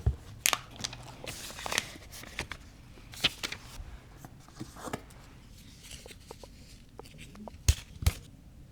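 Unboxing handling noise from a laptop box and its packaging: scattered rustles, soft clicks and light knocks of cardboard and paper, with two sharper knocks near the end.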